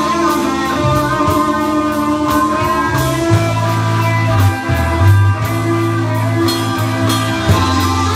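Live rock band playing loud: electric guitar over a bass line and drum kit.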